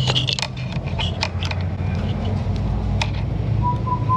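Scattered light clicks and taps of hand tools working on a car's engine bay, over a steady low hum.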